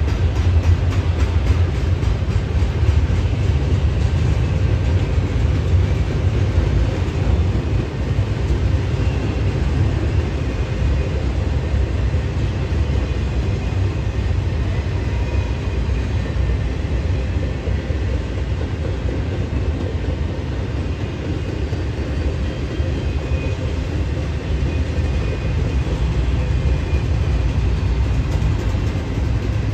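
Double-stack intermodal freight cars rolling past: a steady, loud rumble of steel wheels on the rails.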